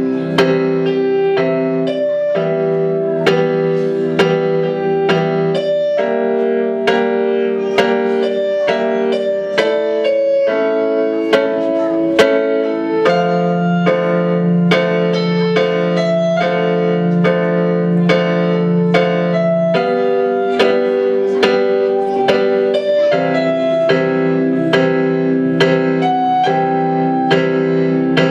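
Portable electronic keyboard played solo in a piano voice: a melody of single notes over held lower chords that change every few seconds.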